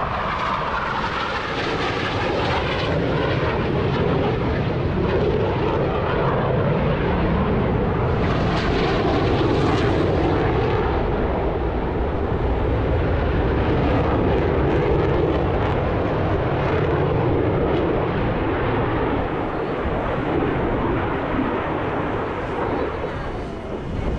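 Blue Angels F/A-18 Super Hornet jet engines running, a loud steady rush that swells a little around the middle.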